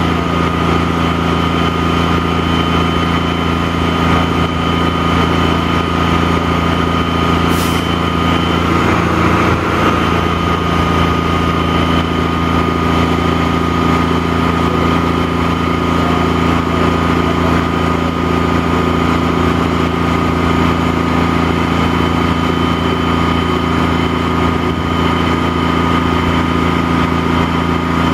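Truck-mounted crane's diesel engine running steadily at a constant speed, a low hum with a steady higher whine over it, while it works the lift. There is a short hiss about seven and a half seconds in, and the engine's note shifts slightly a moment later.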